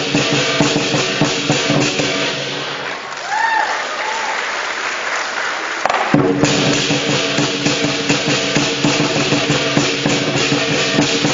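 Chinese lion dance percussion: a big drum beaten in fast, dense strokes with crashing cymbals, starting suddenly. About six seconds in it grows louder, with a steady ringing tone joining in.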